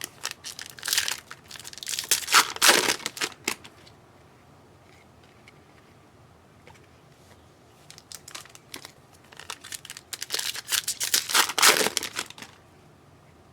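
Foil trading-card pack wrapper being torn open and crinkled, in two spells of crackling separated by a pause of a few seconds.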